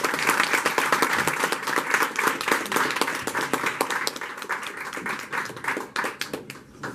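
A small audience applauding, the clapping thinning out and dying away near the end.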